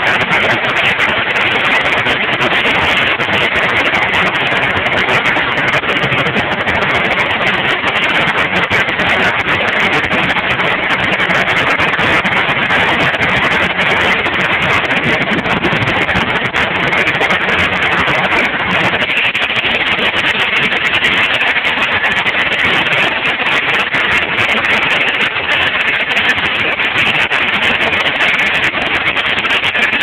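Antique sawmill running: its engine and belt-driven circular saw make a loud, steady mechanical noise.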